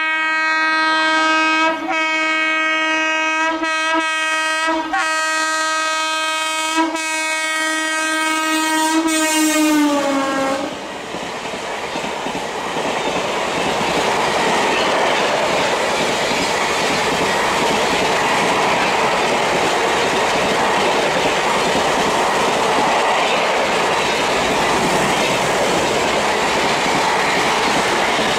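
WAP-7 electric locomotive's horn sounding one long blast for about ten seconds, dropping in pitch as it ends while the locomotive passes. Then the steady rush and clickety-clack of LHB passenger coaches running through at speed.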